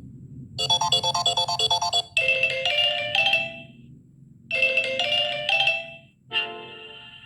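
Samsung Galaxy J3 Pro (2017) built-in phone tones played one after another. First comes a quick run of repeating electronic notes. Then a short few-note chime sounds twice with a pause between, and a new, fuller tone starts near the end.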